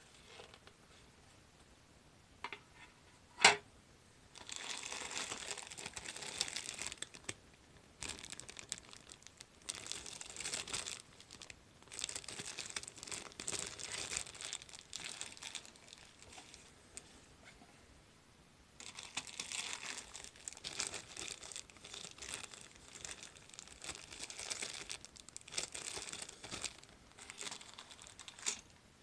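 Clear plastic bags around a plastic model kit's parts runners crinkling as they are handled, in two long stretches separated by a short lull. A single sharp knock comes just before the first stretch, the loudest moment.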